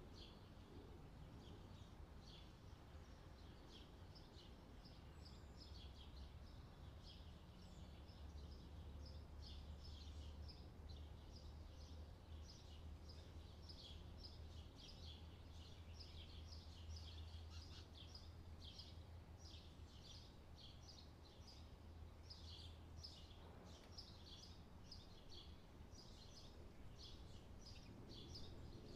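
Faint chirping of small birds, many short high chirps in quick succession, over a low steady hum.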